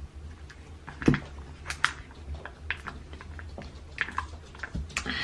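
A person gulping beer from a glass: a series of short, wet swallowing clicks, the loudest about a second in.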